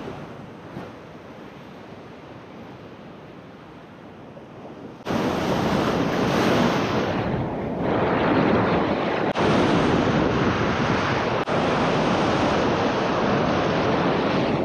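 Ocean surf washing over a rock ledge, a steady rushing of white water. About five seconds in it suddenly becomes much louder and fuller.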